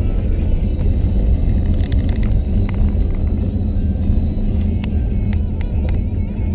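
Steady low rumble of a vehicle driving on a gravel forest road, heard from inside the cab, with a few sharp clicks and rattles scattered through it.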